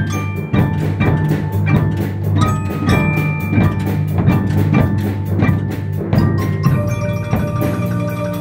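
Percussion ensemble playing in a steady beat: marimbas and other mallet keyboards carry the melody over a strong bass, with tabla and drums. About two-thirds of the way through, more sustained ringing notes join in.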